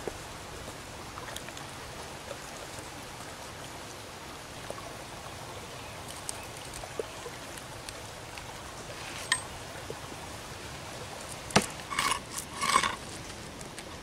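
Shallow creek water flowing steadily over rocks, with a few sharp clicks and short ringing clinks near the end.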